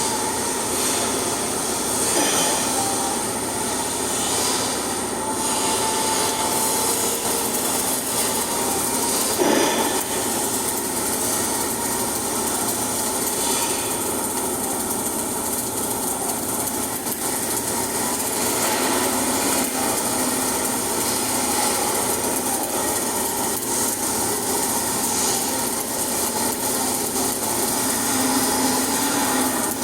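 Flux-cored arc welding: the arc crackling steadily.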